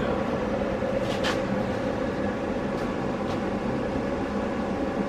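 A steady mechanical hum, with a faint light knock about a second in.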